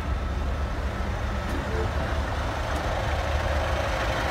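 ScotRail Class 156 Sprinter diesel multiple unit moving slowly past along a station platform: a steady low drone from its underfloor diesel engines, with a rushing noise that grows louder over the last second or so as a coach goes by close.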